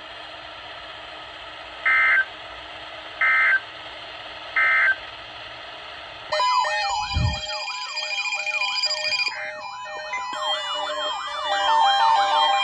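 Weather-radio receiver hiss carrying three short data bursts about a second and a half apart: the SAME end-of-message code that closes a NOAA Weather Radio test. About six seconds in, a loud warbling, siren-like electronic sound starts, with a low thump and a rhythmic musical pattern layered over it.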